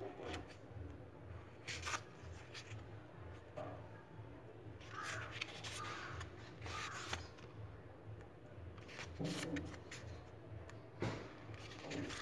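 Paper rustling as the pages of a paperback book are handled and turned, a few short sharp rustles over a low steady hum.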